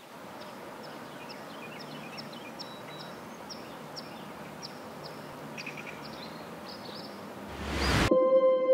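Small birds chirping repeatedly in quick, high calls over a steady outdoor hiss. Near the end a rising whoosh swells and cuts into ambient music with long sustained tones.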